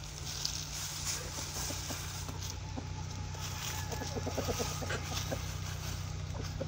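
Chickens clucking in the background, with a quick run of clucks about four seconds in, over a steady low hum.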